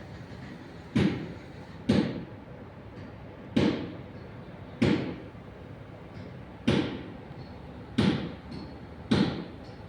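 A series of seven sharp knocks, irregularly spaced, each dying away quickly, over a steady workshop background.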